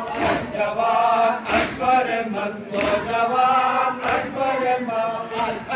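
A group of men chanting a Shia noha lament together, with loud, even hand strikes on their chests (matam) about every 1.3 seconds keeping the beat.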